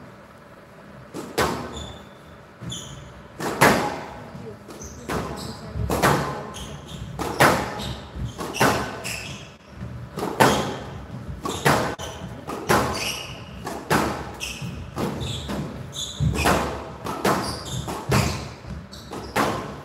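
A squash rally in a large hall: the ball smacks off rackets and the glass and front walls about once a second, each hit echoing, with short shoe squeaks on the court floor between hits.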